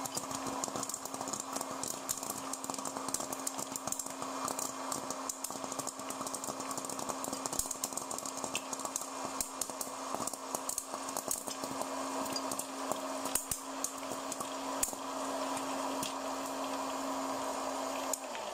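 Łucznik hot-air popcorn maker running: a steady fan-motor hum and rush of air, with many irregular sharp clicks of kernels popping and popped corn knocking against the plastic chute. Right at the end the hum starts to sink in pitch as the motor winds down.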